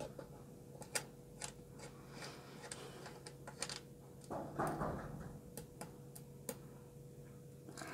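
Scattered light clicks and taps from handling a power inverter's metal case and working its battery terminal posts by hand, with a brief rubbing sound about halfway through, over a faint steady hum.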